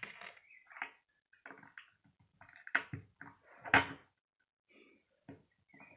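Plastic Lego bricks being handled and pressed together on a wooden tabletop: scattered clicks and knocks, the loudest a little under three and four seconds in.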